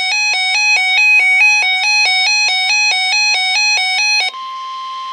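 A NOAA weather alert radio's alarm sounding, a rapid, even pattern of alternating electronic beeps, set off by the station's Required Weekly Test. About four seconds in it cuts off and the steady 1050 Hz NOAA Weather Radio tone alert takes over.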